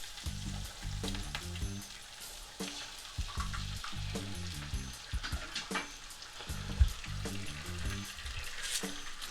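Butter and bacon grease sizzling in a frying pan, a steady crackling hiss with a few light clicks, over quiet background music.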